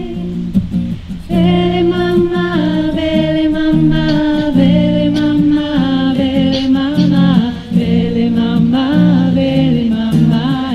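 Women's voices singing a slow, mostly unaccompanied song, with long held notes that step from pitch to pitch.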